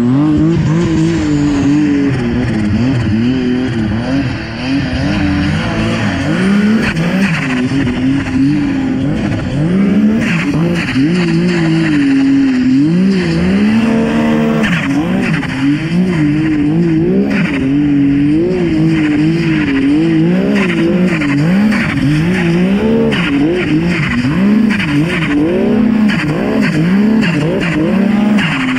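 2018 Arctic Cat King Cat snowmobile's two-stroke engine, fitted with a 290 hp Precision EFI kit, revving up and down over and over as the sled is ridden through deep powder.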